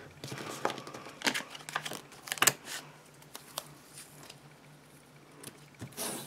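Washi tape being peeled off its roll and pressed onto paper planner pages: a run of short crackling rips and taps, busiest in the first two and a half seconds, then quieter paper handling.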